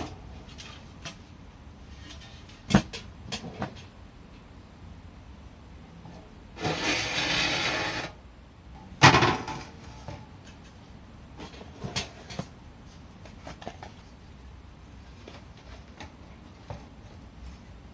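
Parts of a thin titanium tent stove handled by gloved hands: scattered light clicks and knocks, a scraping slide lasting over a second about seven seconds in, then a louder knock about nine seconds in.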